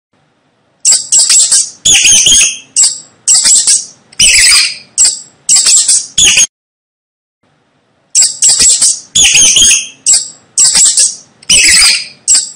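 Mouse squeaking: a quick series of short, high-pitched squeaks in two runs of about five seconds each, with a gap of about a second and a half between them.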